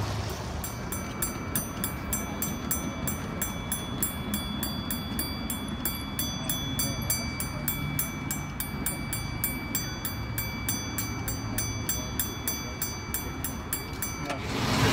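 Railroad crossing signal bell ringing steadily, about four strokes a second, as the crossing signal is activated for an approaching train. It starts just after the beginning and stops shortly before the end.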